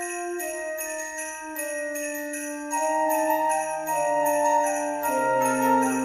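Christmas background music: sleigh bells shaking on a steady beat over held melodic notes, with fuller, louder chords coming in about three seconds in.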